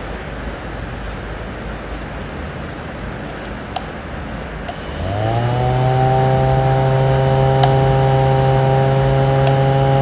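Handheld mini mist fan's small electric motor and plastic blades spinning up about halfway through, the hum rising quickly and then running at a steady pitch. Before it starts there is a steady hiss and a couple of faint clicks.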